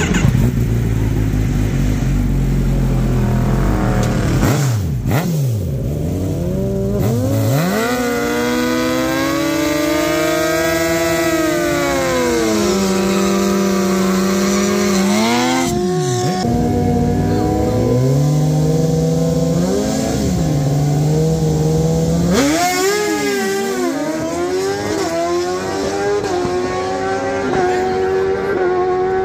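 Suzuki GSX-R1000's inline-four engine being revved hard at a drag strip start line, its pitch repeatedly rising and dropping. Near the end the bike launches and pulls away, the engine note climbing steadily.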